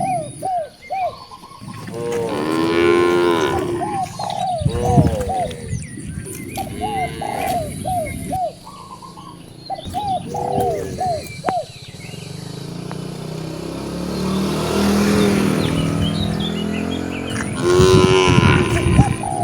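Cattle mooing several times, one long low moo lasting several seconds in the second half. Between the moos a bird calls in short, quickly repeated notes.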